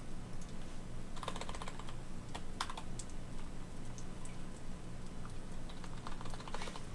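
Typing on a computer keyboard in a few short bursts of clicks, over a low steady hum.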